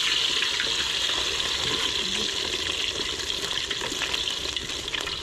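Sliced potatoes sizzling in hot oil in a disco, a steel plough-disc frying pan: a steady hiss that eases slightly as it goes.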